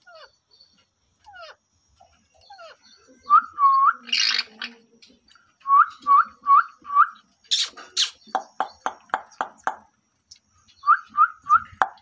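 Indian ringneck parakeets calling: short rising whistled notes in runs of two to four, two or three harsh screeches, and a quick run of sharp calls about five a second in the middle.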